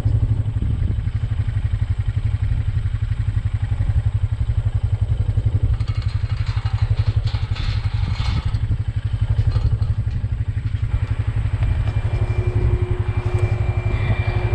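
Quad (ATV) engine running steadily with a low, even throb, with some rattling and clatter about halfway through.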